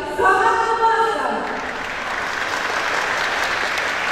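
A voice with long, held notes ends about a second in, and then the audience applauds steadily.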